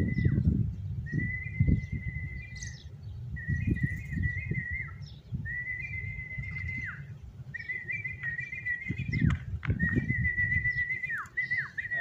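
A whistle sounded over and over, about six times, each a steady high note held for a second or so that drops sharply at the end: a recall whistle for free-flying pet lovebirds. A steady low rumble runs underneath.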